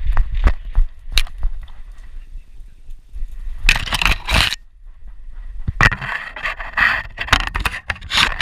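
A dog's running footfalls picked up by a camera strapped to the dog; they die away in the first second or so. Two stretches of loud scraping and crunching follow close to the microphone, the second one longer.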